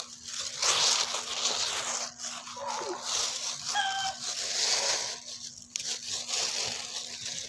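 A thin plastic bag crinkling and sweet potato leaves rustling as the tops are picked by hand, loudest for the first five or six seconds. A couple of brief animal calls are heard in the background near the middle.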